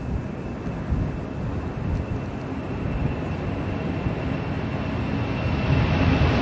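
Boeing 747's four jet engines at takeoff thrust: a deep rumble with a steady high whine above it, growing louder as the jet comes closer.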